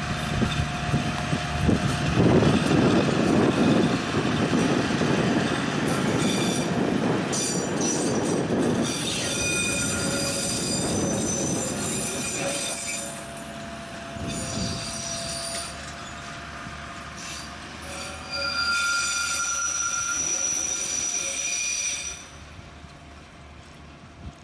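Engineering train of rail-mounted track machines (tamping and ballast machines) rolling slowly past, with a running engine and wheel rumble, and high-pitched wheel squeal in two long stretches, the second near the end. The sound drops suddenly to a much quieter background rumble shortly before the end.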